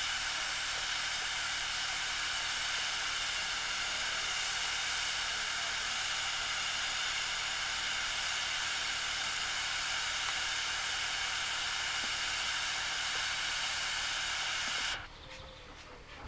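Steady hiss of escaping steam from an Aveling & Porter steam roller passing close by, even in level, cutting off suddenly near the end.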